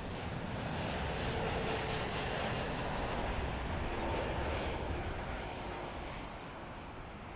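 Jet airliner engine noise heard at a distance: a steady rush that swells over the first couple of seconds and then slowly fades.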